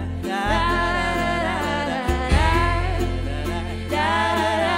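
Background music with a singing voice carrying a melody over steady low bass notes.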